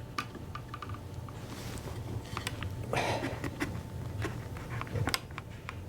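Wooden table parts being handled and fitted together by hand, tenons going into mortises during a dry fit: scattered light wooden knocks and clicks, with a short scrape about halfway and a sharper knock near the end.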